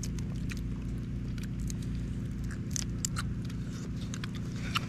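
Scattered sharp clicks and crackles of grilled mantis shrimp shells being cracked and peeled by hand, over a steady low hum.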